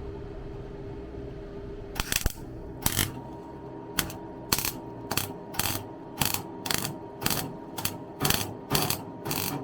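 A welder laying a run of tack welds on rusted steel: short bursts, about two a second, beginning about two seconds in, over a low steady hum.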